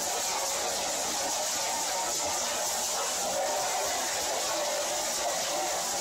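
A 24 by 16 heavy-duty hammer mill running steadily as it crushes brass door knobs, along with the conveyor belt it feeds, making a continuous, even mechanical noise.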